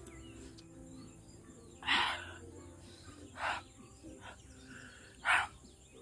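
Three sharp breaths hissed through the mouth, each about a third of a second long, about two seconds in, three and a half seconds in and near the end: a spice-burn reaction to hot chilli.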